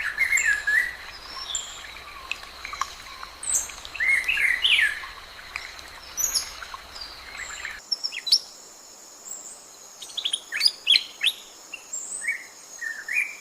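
Wild birds calling with short chirps and slurred whistled notes over a thin, steady high tone. About eight seconds in the background changes abruptly, and the chirps then come in quicker clusters.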